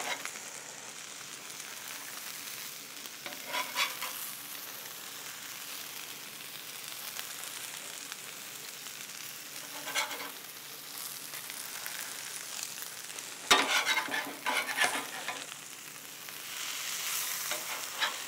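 Sauce-dipped corn tortilla tacos sizzling steadily on a hot Blackstone griddle. Short metal spatula scrapes on the griddle plate come about four seconds in, again about ten seconds in, and louder and more often from about thirteen to fifteen seconds in.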